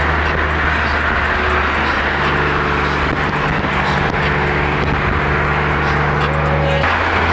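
A car being driven: a steady engine drone over road noise, heard from inside the cabin. The engine note changes about two seconds in and again near the end.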